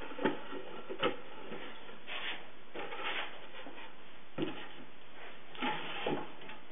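Redwood barrel staves, held together with masking tape, knocking and rubbing against each other and the wooden workbench as the assembly is lifted and stood on end: two light knocks in the first second, then scattered short rubbing and shuffling.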